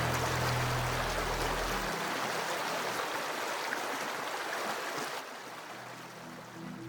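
Creek water flowing, a steady even rush with a trickle in it, which grows quieter about five seconds in.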